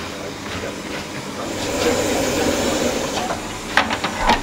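Steady hiss and rush of a bakery oven's open flame, swelling about halfway through, with a few sharp knocks near the end from the long wooden peel striking the oven floor as flatbreads are moved.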